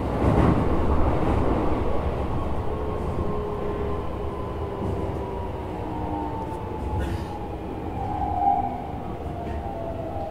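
Keikyu New 1000 series (1800 subseries) electric train heard from inside the front car while it slows. Rail and running rumble carry under a high electric whine from the traction motors and inverter that falls slowly in pitch, with a brief louder squeal about eight seconds in.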